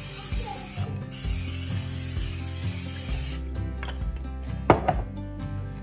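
Aerosol cooking spray hissing onto a glass baking dish in two spurts, with a brief pause about a second in. The spray stops about three and a half seconds in, followed by a few clicks and one sharp knock near the end. Quiet background music plays underneath.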